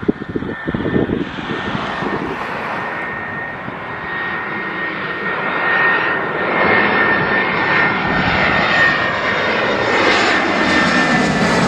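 Airbus A320-family twin-jet airliner on final approach with gear down, its engines giving a steady high whine over a rushing rumble that grows louder as it comes close overhead. Near the end the whine drops in pitch as the aircraft passes.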